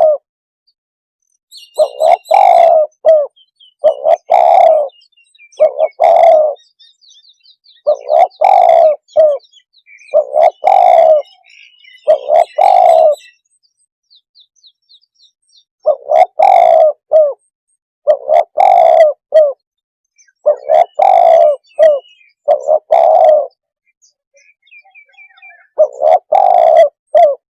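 Spotted dove cooing: loud, low coo phrases of two or three notes repeated about every two seconds, with short pauses twice. Faint high chirps of small birds sound between the phrases.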